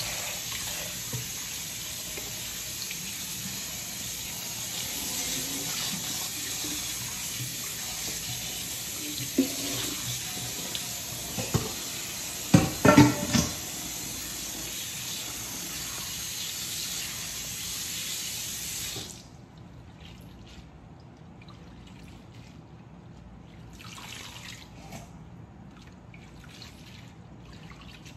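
Kitchen tap running steadily into a stainless steel sink and a glass bowl as shredded green papaya and carrot are rinsed by hand under cold water to wash off the salt brine. A few loud knocks and clinks come about halfway. The tap shuts off abruptly about two-thirds of the way through, leaving soft handling sounds as the wet shreds are squeezed.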